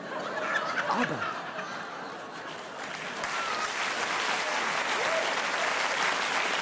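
Theatre audience applauding, the clapping swelling over the first three seconds and then holding steady.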